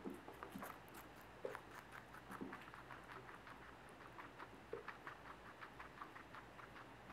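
Guinea pig chewing its food from a plastic bowl: a faint, quick run of small clicks, about four a second, with a few soft knocks among them.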